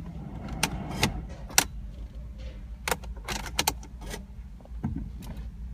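Irregular light clicks and rattles, some in quick clusters, over a steady low hum, with no sound of the starter cranking: the 2006 BMW 650i fails to turn over at the start button.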